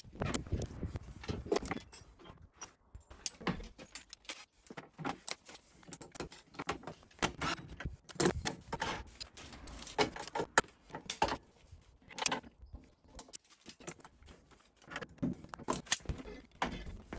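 Irregular metallic clinks and knocks of bolts, tools and the steel swing-away wheel carrier being handled while it is bolted to its hinges.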